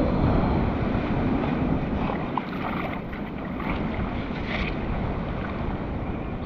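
Steady wind rumbling on the microphone over the continuous wash of ocean surf.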